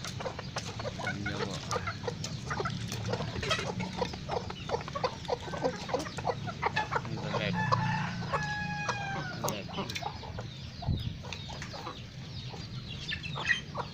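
A flock of Indonesian village chickens (ayam kampung) clucking continuously, with a rooster crowing once about eight seconds in.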